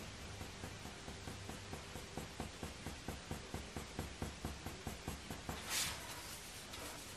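Faber-Castell Polychromos coloured pencil scratching across hot-press watercolour paper in quick short fur strokes, about four a second. Near the end the strokes stop and there is a brief hiss.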